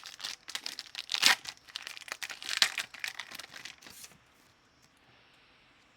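Foil trading-card pack crinkling and tearing as it is opened and the cards handled, irregular rustling for about four seconds with two louder crackles, then it stops.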